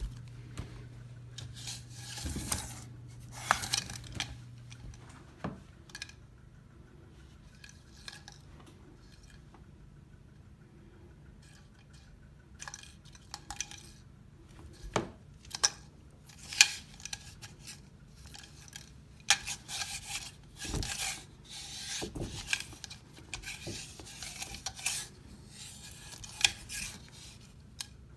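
Plastic drinking straw batted about by a cat on a tile floor and against a door: irregular light clicks, taps and scrapes, with a quieter stretch of several seconds.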